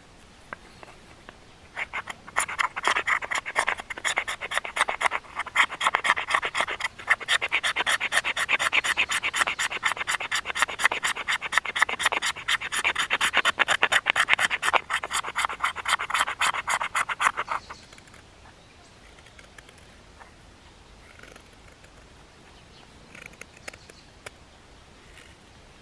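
Knife blade scraping a stick of fatwood in quick, short, repeated strokes, several a second, to raise a pile of fine tinder scrapings. The scraping starts about two seconds in and stops near eighteen seconds, leaving only a few faint strokes.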